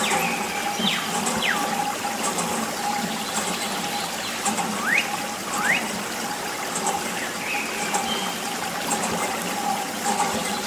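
Thin stream of water trickling and splashing from a small tube onto a plastic toy combine harvester and into wet sand. A few quick high chirps slide down about a second in and up about five seconds in.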